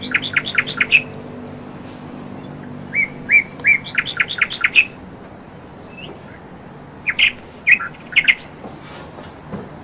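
A bird singing in repeated phrases: a few short chirps running into a quick series of higher chirps, heard at the start and again about three seconds in, with a few separate chirps later.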